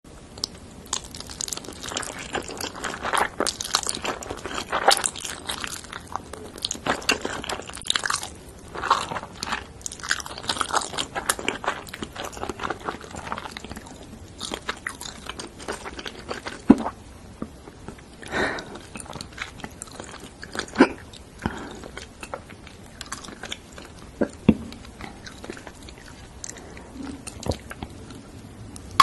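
Mouth sounds of eating thick noodles and a large sausage: chewing and biting with many short wet clicks and smacks, busy in the first half and sparser later.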